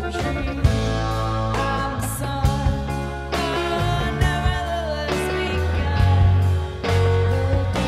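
Rock band playing live, loud and steady, with sharp regular strokes over a heavy low end.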